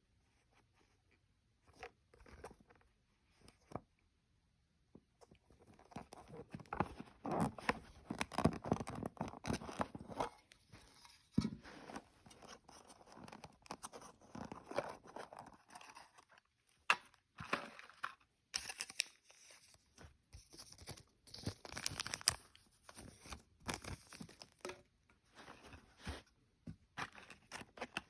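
Model train car packaging being torn open and handled, with crinkling, tearing and scraping. A few separate clicks come first, and the steady rustling starts about five seconds in.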